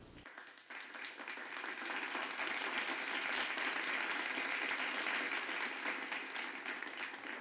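Audience applauding, a dense patter of many clapping hands that swells over the first two seconds and then holds steady.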